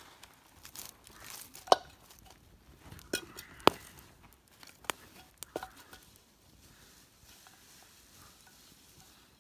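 A steel pan over a campfire knocking and clanking, with about five sharp metal knocks in the first six seconds. It ends in a faint steady hiss.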